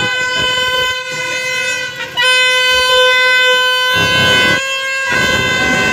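Plastic trumpet horns (vuvuzela-style) blown in one long, steady, high honk. The honk gets louder about two seconds in and dips briefly near the end.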